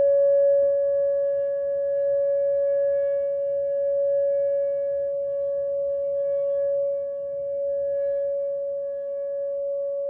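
Whelen WPS 2910 electronic outdoor warning siren sounding a steady, unwavering tone, heard from inside a house, its loudness swelling and easing gently.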